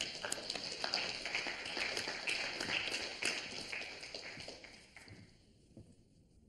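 Scattered applause from a small audience, many quick claps that die away about five seconds in.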